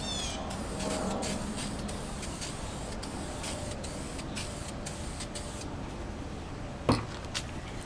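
Aerosol spray can of primer sealer spraying with a steady hiss, laying a light coat onto a plastic motorcycle side cover. A brief sharp sound stands out about seven seconds in.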